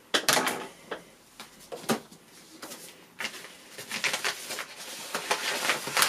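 Padded mailing envelope being handled and opened: a few sharp clicks and knocks, then from about three seconds in a crackly rustling and crinkling that grows louder.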